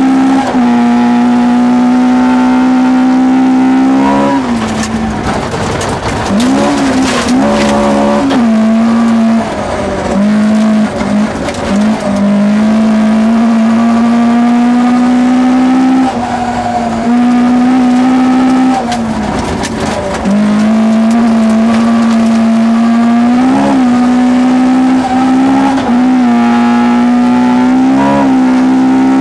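Toyota Corolla GT 1600 rally car engine heard from inside the cabin, held at high, steady revs under full throttle. The revs drop and climb back several times as the car lifts and shifts, with short throttle blips in the later part.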